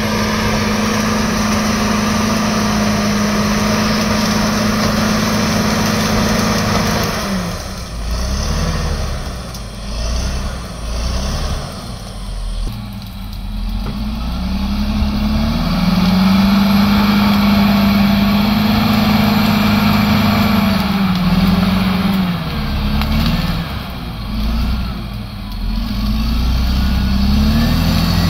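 Crawler bulldozer's diesel engine running under load as the blade pushes through brush and soil. Its pitch holds steady at first, sags and wavers about a quarter of the way in, climbs back around the middle, then dips and recovers again near the end.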